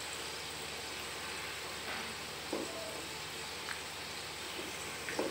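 Taro root (arvi) pieces frying in hot oil in a nonstick pot, with a steady hiss of sizzling. A few light taps and scrapes of the spatula come as pieces are lifted out.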